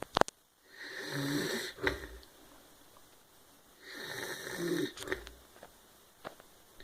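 A sleeping man snoring: two snoring breaths about three seconds apart, each with a pitched snore in the middle. A sharp click comes just after the start.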